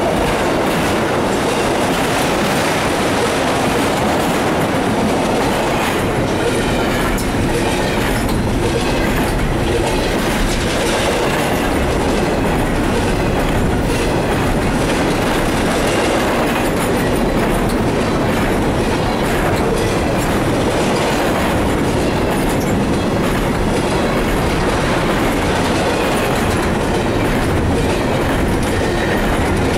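Freight train cars rolling past, steady and loud: the rumble of steel wheels on rail with a clickety-clack over the rail joints, as enclosed autorack cars give way to double-stack container well cars.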